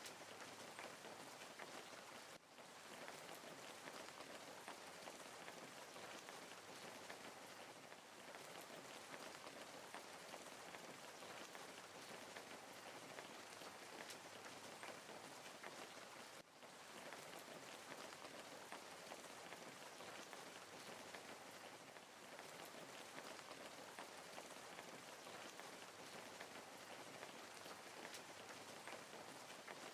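Faint crackling wood fire: a steady hiss dotted with many small sharp pops, dipping briefly twice.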